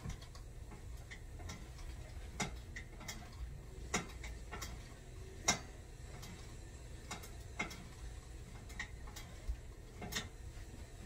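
Bowflex Blaze home gym's cables and handles being pulled through repeated exercise strokes, giving sharp, irregularly spaced clicks and taps from the pulleys and cable hardware. The loudest click comes about five and a half seconds in.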